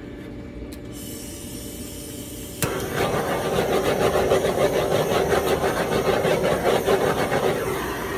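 Handheld torch lighting with a click about two and a half seconds in, then its flame running with a steady rushing hiss as it is passed over wet acrylic pour paint to pop air bubbles.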